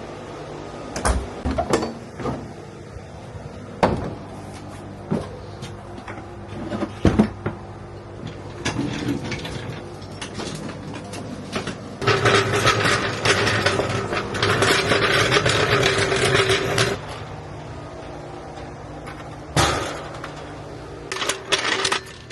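Hand-tool work on a car: scattered clicks and knocks of tools and parts, then a power tool running steadily for about five seconds in the middle, and a few more knocks near the end.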